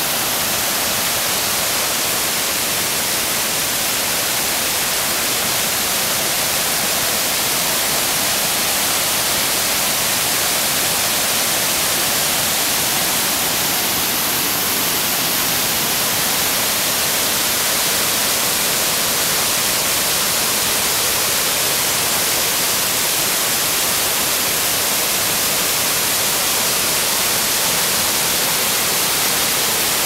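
Connestee Falls waterfall: a steady, unbroken rushing hiss of falling water.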